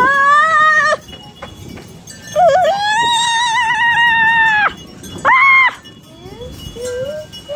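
An animal crying out three times in high, wavering calls: a rising cry at the start, a long one a couple of seconds in, and a short one a little after.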